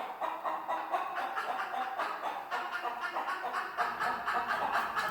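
Several chickens clucking continuously, with short overlapping calls.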